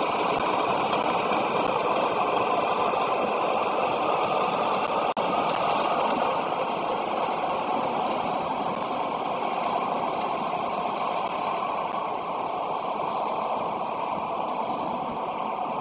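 Diesel locomotive engines running, a steady rumbling drone from a Class 47-hauled train, easing off slightly in the second half as the train draws along the platform.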